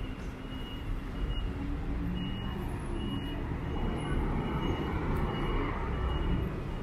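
Busy city intersection traffic: cars, scooters and buses running past, growing louder in the second half. Over it a pedestrian crossing signal beeps, a short high beep repeating a little more than once a second.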